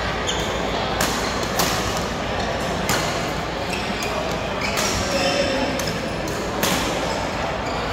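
Badminton rackets striking a shuttlecock in a rally: several sharp hits, irregularly spaced about a second apart, each ringing briefly in the large hall.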